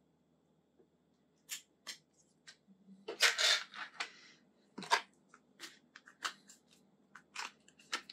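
Plastic phone case being handled and pressed onto a Samsung Galaxy S23 Ultra: scattered clicks and taps, with a louder scraping rustle about three seconds in and a sharp click just after.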